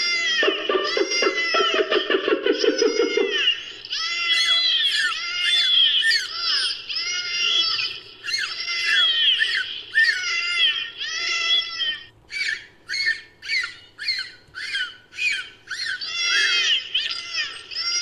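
Dolphin whistles and squawks, edited into a creature sound effect. A buzzing, pulsed squawk opens it, followed by a string of arching whistles. About two-thirds of the way through comes a run of short, quick chirps, then more whistles.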